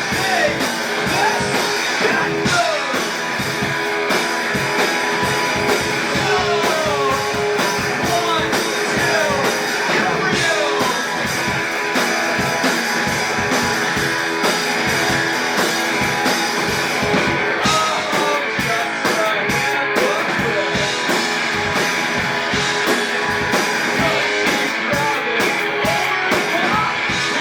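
A rock band playing live: electric guitar with bending notes over drums and bass, loud and continuous.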